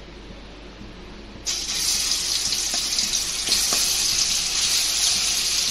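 Ginger-garlic paste dropped into hot oil, setting off a loud, steady sizzle about a second and a half in, with a few light clicks.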